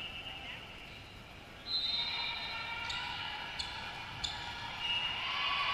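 Volleyball play in a gym: three sharp ball contacts a little over half a second apart, among high squeaks and crowd voices that grow louder near the end.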